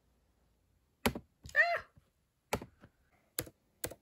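Single key presses and clicks on a laptop keyboard and mouse, four or five spaced well apart. About a second and a half in comes a short pitched sound that rises and falls, louder than the clicks.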